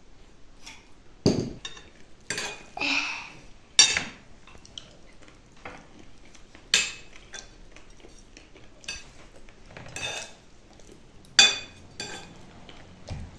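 Metal spoons and forks clinking and scraping on china plates and a bowl during a meal, a string of irregular sharp clinks with a few louder knocks.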